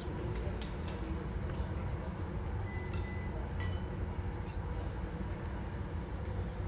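Steady low background hum with a few faint light clicks and clinks of small parts being handled, a few near the start and a couple more around the middle.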